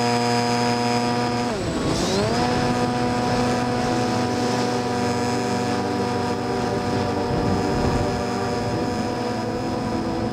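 Electric motor and propeller of a Multiplex EasyStar RC model plane running with a steady whine. About two seconds in, the pitch drops briefly as the throttle comes back, then climbs back up and holds steady.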